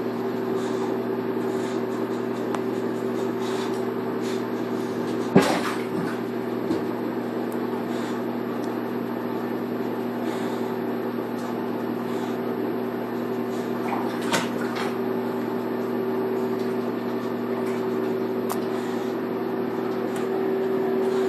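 Steady electric motor hum, like a bathroom fan or tub motor. A sharp knock about five seconds in and a lighter one around fourteen seconds come from a boxer's paws bumping the acrylic jetted tub as she climbs about in it.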